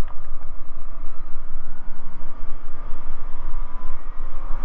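Bristell light sport aircraft's engine and propeller being brought slowly up to full power for the takeoff roll: a loud, steady drone whose pitch creeps slightly upward.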